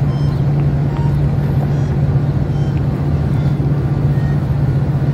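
A steady, loud low engine drone, like a motor running without change in pitch.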